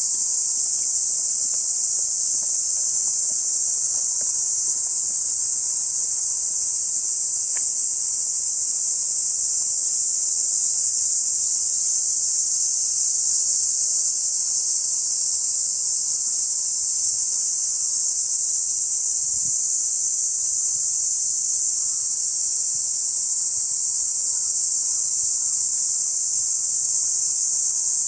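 A dense chorus of many cicadas singing together as one continuous, high-pitched hiss that never breaks or changes.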